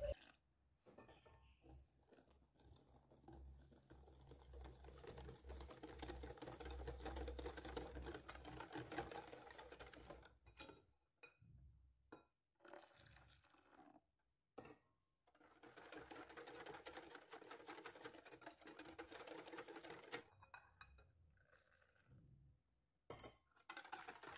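Faint metal balloon whisk clicking and scraping rapidly against a glass bowl, beating hot milk into an egg-yolk and sugar mixture. It comes in two main spells, with near silence between.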